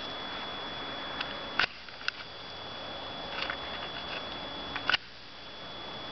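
Steady hiss from a handheld consumer camera's own microphone with a faint high whine, broken by a few sharp handling clicks, about a second and a half in and again near five seconds. The hiss drops after each of those two clicks.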